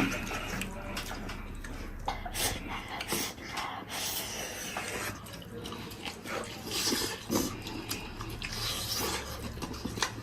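Eating sounds: irregular chewing and mouth noises with scattered small clicks, from someone eating braised pig's-trotter rice.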